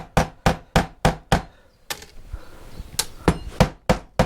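Hammer blows in a steady run of about four a second that stops about a second and a half in; after a pause comes a single blow, then another quick run of about five blows near the end.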